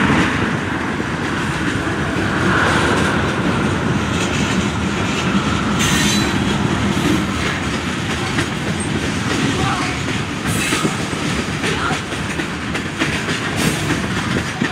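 Manifest freight train's tank cars, covered hoppers and boxcars rolling past close by: a steady clatter of steel wheels clicking over rail joints, with a brief wheel squeal about two seconds in.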